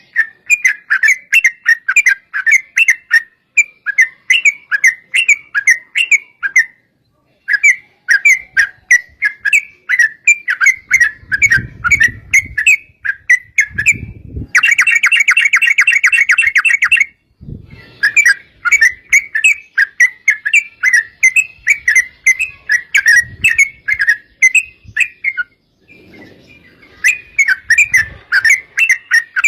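Yellow-vented bulbul (trucukan) singing loud, quick chattering phrases of repeated notes, several a second, broken by short pauses, with a fast continuous trill (ropel) from about 14 to 17 seconds in.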